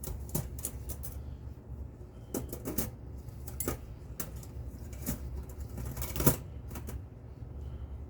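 Irregular clicks and light knocks of hand work on bicycle parts, over a low steady hum. The loudest knock comes about six seconds in.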